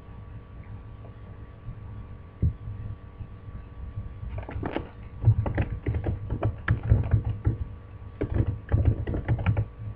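Typing on a computer keyboard: a quick run of keystrokes from about four seconds in until near the end, after a single click about two and a half seconds in. A low steady hum lies underneath.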